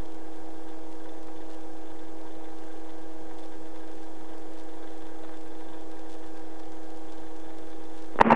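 Steady hum of several pitched tones in a Robinson R22 helicopter's headset intercom audio, holding at an even level with no change.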